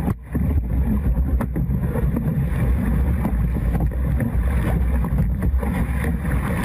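Heavy wind rumble on the boat-mounted camera's microphone, with water rushing as a breaking wave crashes over a surf life-saving rowing boat. The sound drops out briefly just after the start, then runs on as a steady loud rumble.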